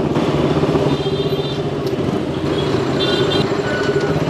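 Motorcycle engine running steadily while riding along, a dense pulsing rumble, with short high-pitched tones about one and three seconds in.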